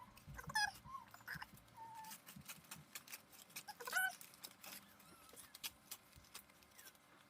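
Packaging crinkling and rustling as the next plant is unwrapped, with several short high-pitched whining calls over it, the loudest about four seconds in.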